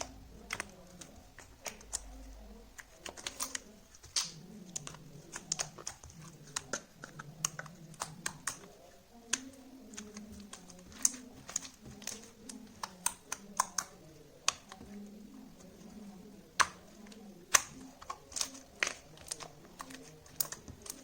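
Slime being squeezed and worked by hand, giving off irregular sharp clicks and pops, some louder, as trapped air pockets burst.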